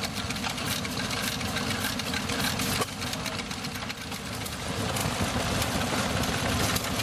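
Several vintage stationary engines running at once, a busy overlap of chugging and rapid ticking.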